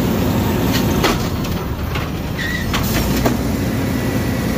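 Automated side-loader arm of a garbage truck dumping a wheeled trash can into the hopper and lowering it back to the curb, over the steady noise of the running truck. There are several clanks and knocks from the arm and can, and a short squeak about halfway through.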